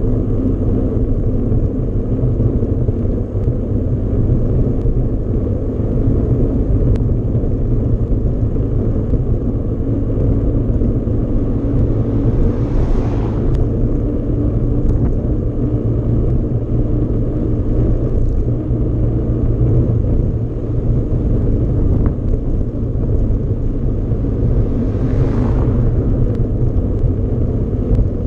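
Mountain-bike riding noise: a steady low rumble of wind on the microphone and tyres rolling over the ground, with two brief swishes, one near the middle and one near the end.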